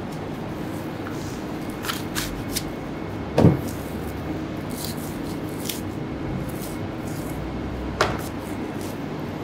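Butcher's knife working through a slab of raw wagyu beef on a wooden block: a few light clicks of the blade, a heavier thump about three and a half seconds in and another about eight seconds in, over a steady background hum.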